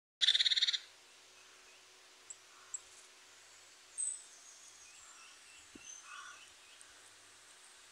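A short, rapid, high trill of about half a second at the start, then a few faint chirps and small clicks: animal calls played from a mobile phone's speaker.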